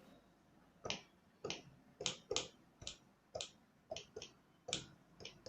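About a dozen short, sharp plastic clicks at an uneven pace: buttons on a Nektar Impact LX49+ MIDI keyboard controller being pressed.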